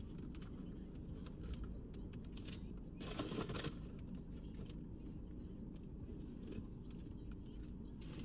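Handling and unwrapping toy packaging: scattered small clicks and rustles, with one louder crinkling burst about three seconds in, over a steady low rumble.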